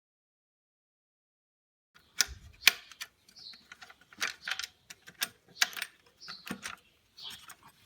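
Metal hand tools clicking and clinking against engine parts as they work on the diesel injection pump, a string of sharp separate taps starting about two seconds in.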